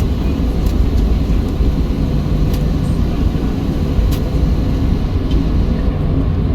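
Cabin noise of a Boeing 737-700 taxiing: a steady low rumble from its CFM56-7B engines at taxi power and the rolling aircraft, with a faint steady hum and a few faint clicks.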